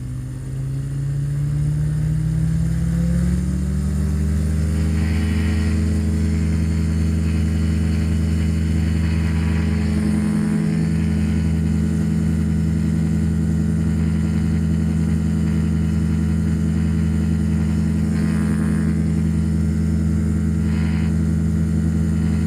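Rotax 582 two-stroke twin engine and propeller of a Spectrum Beaver ultralight opening up for takeoff: the engine's pitch rises over the first four seconds or so, then holds steady through the takeoff run and climb-out.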